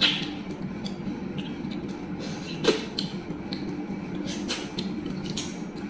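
Close-up eating sounds: wet mouth smacks and chewing as pieces of fish head are bitten and picked apart by hand, a few sharp smacks standing out. A steady low hum runs underneath.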